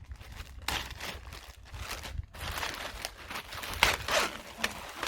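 Rustling and crinkling of a handlebar bag and its materials being handled, in irregular bursts with a sharper click just before the end.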